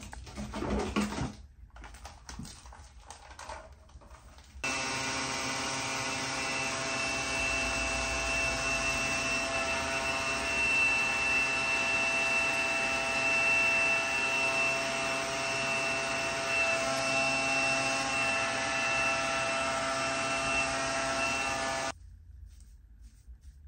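Handheld hair dryer switched on about four and a half seconds in, running steadily with a whine, and cut off abruptly near the end. Before it starts there is a brief rustle of a hand in hair.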